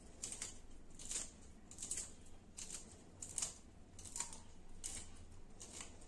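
A kitchen knife slicing through green chillies held in the fingers, a series of short, sharp snips at about two a second.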